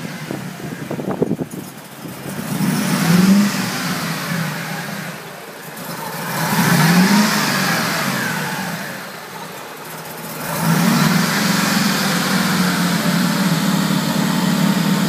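Mercedes G55 AMG's 5.4-litre V8 with a Kleemann supercharger, revved up and let fall back twice, then held steady and louder from about ten seconds in. It is misfiring and idling badly, which the owner blames on a wrongly installed fuel delivery system and wrongly routed vacuum lines to the MAP sensor and switchover valve.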